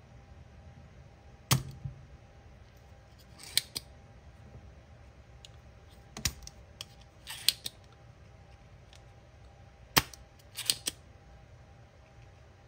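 Spring-loaded solder sucker (desoldering pump) fired three times, each a sharp snap as the plunger shoots back to suck molten solder off the relay's pins. Each snap is followed a second or two later by a shorter hissing click as the pump is pushed down and latched again.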